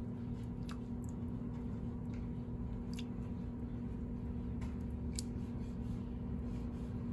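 A steady low machine hum that holds one unchanging tone, with a few faint, short high ticks about a second in, at three seconds and again near five seconds.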